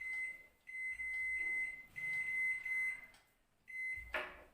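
Microwave oven keypad beeping at one high pitch in several beeps, some held for about a second, as the oven is set to high power for 18 minutes and started.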